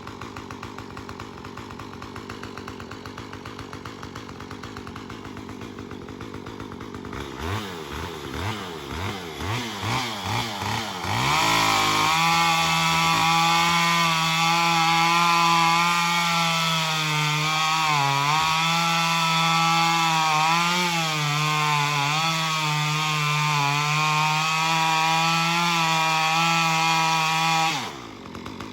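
Two-stroke chainsaw idling, then revved up and down several times, then held at full throttle, its pitch dipping briefly twice, typical of hinge-cutting a tree. It drops back to idle near the end.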